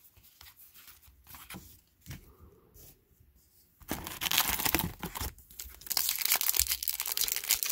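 Soft clicks of trading cards being flicked through. From about four seconds in comes loud crinkling and tearing as a foil trading card pack is ripped open.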